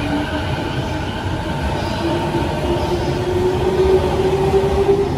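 The B.B.BASE electric train, a converted 209 series multiple unit, runs past at close range. Its traction motors give a whine that rises steadily in pitch as it accelerates, over the rumble of the wheels on the rails.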